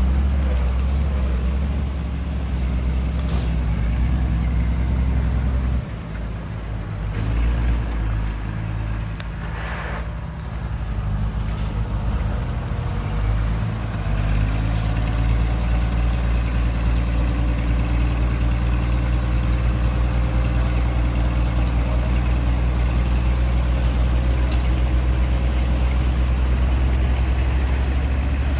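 Heavy diesel engine running steadily with a deep, low drone. About six seconds in it drops back for several seconds, with a brief hiss near the middle, then settles back to its steady level.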